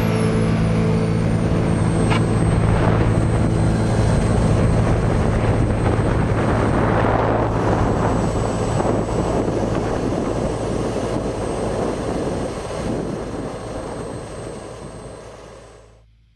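A model jet's 50-pound-thrust turbine engine, recorded by a microphone on the aircraft, with a high whine and rushing air as the jet rolls along the runway. The whine drops in pitch during the first second or two, then holds steady. The sound fades out near the end.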